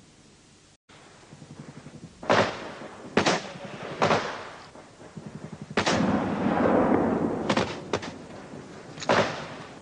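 Scattered gunshots, about seven single shots spaced roughly a second apart, each followed by a long echoing tail.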